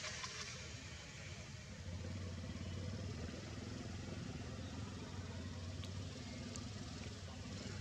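An engine running steadily at a low, even pitch, over a constant background hiss.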